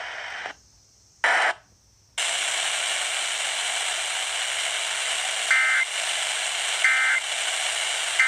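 Radio receiver static hiss that cuts out about half a second in, comes back briefly, then resumes steadily. Over it, in the second half, come three short two-tone warbling data bursts about a second apart: the EAS/SAME digital end-of-message code that closes an alert.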